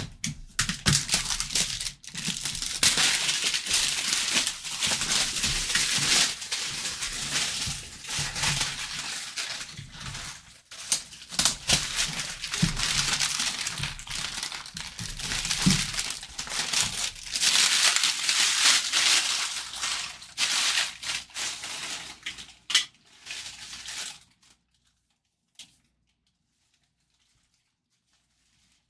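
Plastic shrink-wrap being pulled off a cardboard box and crumpled by hand: loud crinkling and crackling in long spells with short breaks, which then stops.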